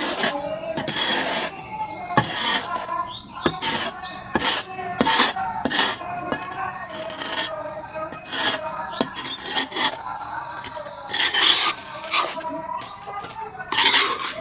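Charcoal being scraped into shape: irregular dry rasping strokes, roughly one every second, some longer and louder than others.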